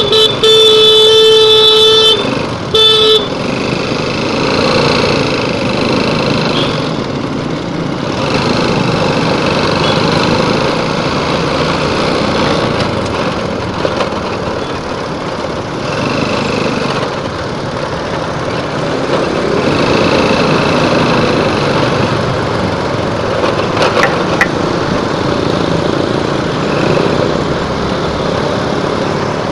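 A vehicle horn sounds loudly on one steady pitch for about two seconds, then gives a short second blast. After that comes the steady noise of a motorcycle riding on through city traffic, its engine mixed with wind and road noise.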